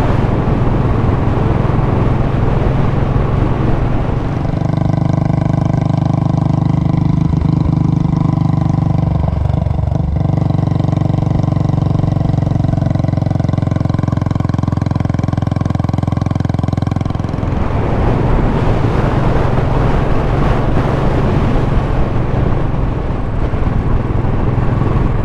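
Royal Enfield Classic single-cylinder motorcycle engine running steadily at cruising speed, with wind rushing over the microphone. About a third of the way in the rushing fades and the engine note comes through clearer and steadier, and the wind returns about two-thirds of the way through.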